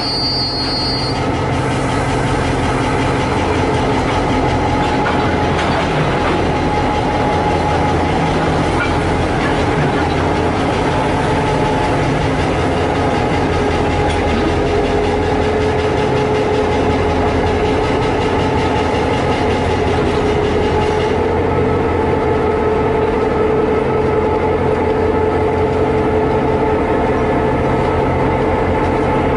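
Two CC202-class diesel-electric locomotives hauling a tank-wagon train at walking pace, their engines running with a steady drone and a whine that slowly rises in pitch.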